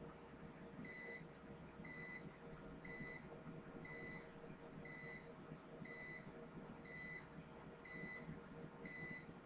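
A faint electronic beep repeating about once a second, starting about a second in, over a low steady background hum.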